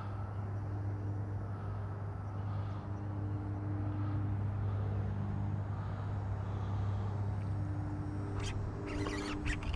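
A steady low motor hum, with a few brief sharp clicks near the end.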